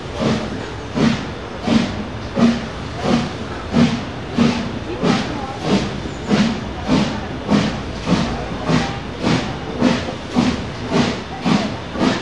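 Steam locomotive working hard at the head of a passenger train, its exhaust beating out a steady rhythm of sharp chuffs, a little under two a second and quickening slightly as it gathers speed, heard from an open coach window down the train.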